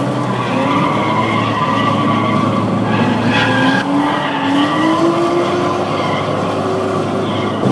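BMW E36 M3 drifting, its tyres squealing over an engine note that climbs slowly and wavers, heard from inside a following car.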